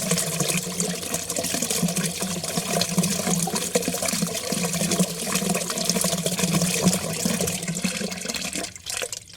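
Water running down a drain in a steady, churning stream that dies away near the end as the drain empties.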